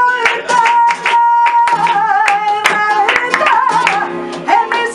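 Live flamenco: a Spanish guitar strummed hard, with sharp rhythmic handclaps (palmas) and a voice singing long, wavering notes over them.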